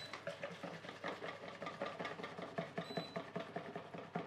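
Wire whisk beating an egg-yolk and sugar mixture in a bowl, a quick, even run of light strokes, as hot milk is poured in to temper it for crème pâtissière.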